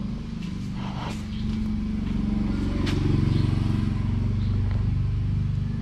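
A motor vehicle engine running steadily, growing louder about three seconds in, with two light knocks.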